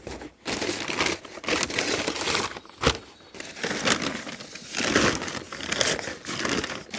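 Packing material being crumpled and rustled by hand as parts are unwrapped from a package, in irregular bursts, with a single sharp knock a little before halfway.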